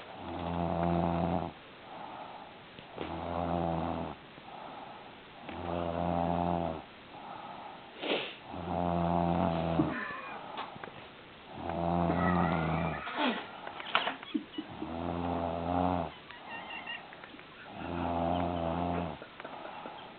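A woman snoring deeply in her sleep: a long, low, loud snore about every three seconds, seven in all, with a softer breath sound between each.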